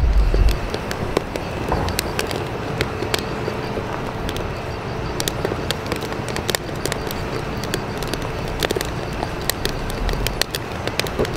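Steady rushing background noise scattered with many short, sharp clicks and crackles, with a faint steady hum through the middle.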